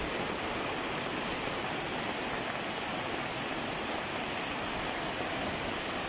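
Rainwater from a roof gutter pouring down a sheet-metal chute and splashing onto concrete in steady rain: an unbroken rushing, splashing hiss.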